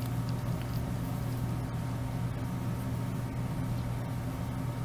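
Steady low hum with a faint hiss over it, unchanging throughout.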